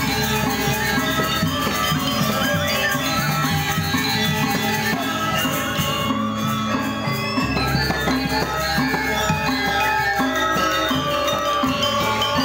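Balinese gamelan ensemble playing: gilded bronze metallophones and gongs ringing together in dense, quick-moving music, with bamboo suling flutes over them.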